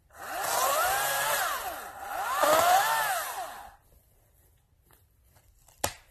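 Greenworks 40-volt DigiPro battery chainsaw run in two bursts of about a second and a half each, its electric motor whining up to speed and winding back down each time. A single sharp click comes near the end.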